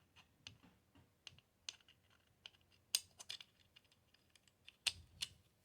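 Faint, scattered light clicks and taps of small metal parts being handled as an AR-15 safety selector is slid into the lower receiver, with a couple of sharper clicks about three and five seconds in.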